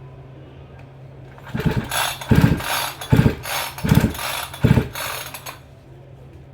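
Chainsaw being pull-started: five quick pulls on the recoil starter within about four seconds, the engine turning over but not catching.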